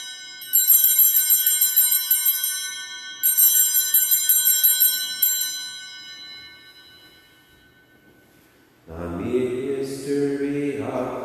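Altar bells (a cluster of small Sanctus bells) shaken at the elevation of the chalice at the consecration, in two long rings and a short third one that fade away. About nine seconds in, a man's voice begins a sung chant.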